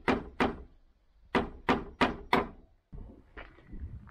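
Hammer driving nails into wooden cladding planks on a timber frame: two blows at the start, then after a short pause four more at about three a second, each a sharp knock. Softer, lighter knocks follow near the end.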